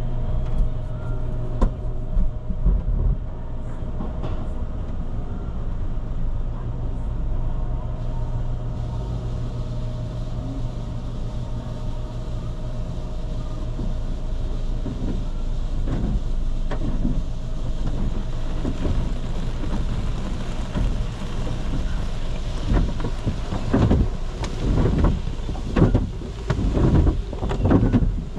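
Sonny's conveyor car wash tunnel heard from inside the car: a steady mechanical hum, then from about halfway through, irregular thumps and swishes against the car's body that grow busier toward the end as the wash equipment works over the car.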